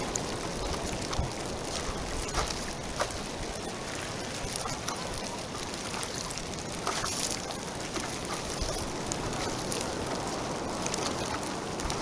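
Small waves lapping and splashing close by, over a steady rush of wind on the microphone, with a few short, irregular splashes.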